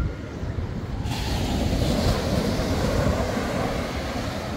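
Surf on a sand beach: a wave breaks and washes in about a second in, its hiss swelling for a couple of seconds and then easing, over a steady low rumble of wind on the microphone.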